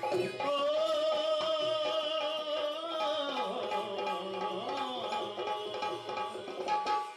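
Live Rajasthani folk music: a voice holds long, wavering notes that slide downward about halfway through, over hand-drum strokes and harmonium.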